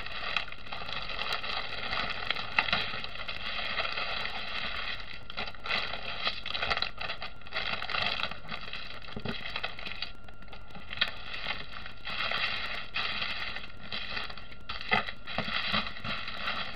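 Small plastic bags of diamond-painting drills crinkling and rustling as hands pull the bundle apart and spread the bags out, with many small clicks throughout.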